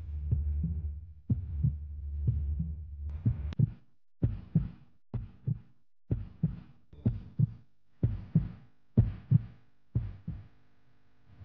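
Heartbeat sound effect in a horror soundtrack: a low drone with thumps, then deep double thumps, lub-dub, about once a second, which stop shortly before the end.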